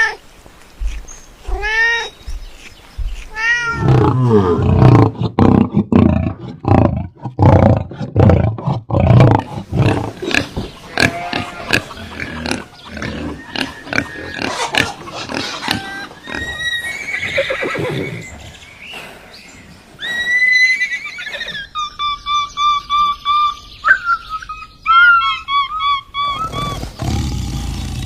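A run of different animals' calls: a few short rising-and-falling cries, then a long stretch of loud, rough, low calls repeated in quick succession, and near the end a series of rapid, high-pitched peeps.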